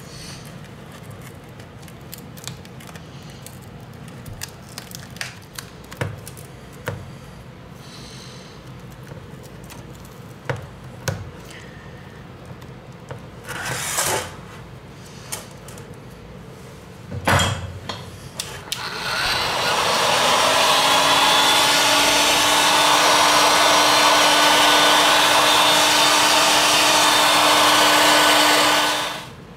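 Scattered small clicks and scrapes of cracked glass pieces being picked at on an iPad's front panel. Then a heat gun is switched on: its fan spins up with a rising hum and settles into a steady loud blowing hiss as it heats the glass to soften the adhesive. It is switched off just before the end.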